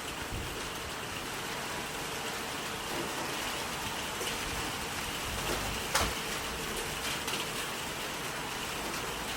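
Steady rain falling, with scattered individual drops tapping close by and one louder drip about six seconds in.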